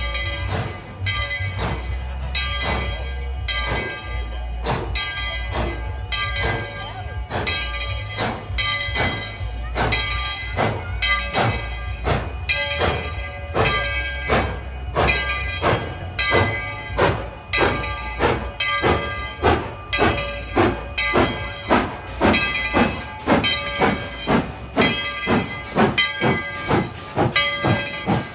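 Narrow-gauge steam locomotive No. 12 pulling away, its exhaust chuffing about twice a second over a steady hiss of steam. The beats grow sharper and more regular in the second half as it passes close by.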